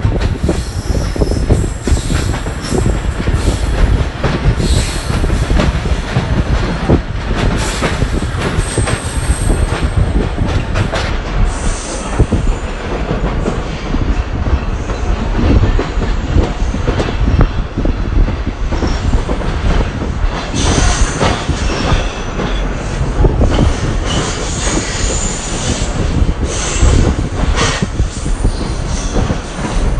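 Wheels of a moving passenger train rumbling and clattering on the rails, heard from an open carriage window. Sharper knocks come more often in the last third.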